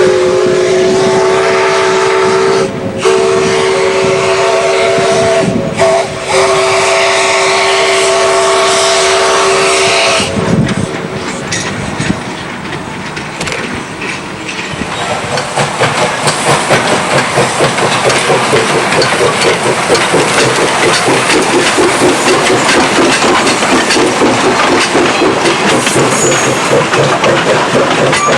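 Steam whistle of Laona & Northern No. 4, a 1918 Vulcan 2-6-2 steam locomotive, blowing for about ten seconds with two brief breaks. From about fifteen seconds in the train runs with a fast, even rhythmic chuffing and clatter.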